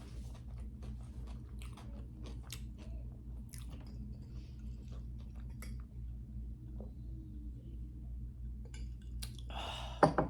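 Close-up chewing of a wet, messy grinder sandwich: irregular wet smacks and mouth clicks over a steady low hum, with a short loud voice sound near the end.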